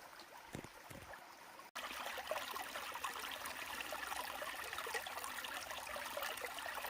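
Steady running water, like a small stream, starting abruptly at a cut about two seconds in; before it, only a few faint soft sounds.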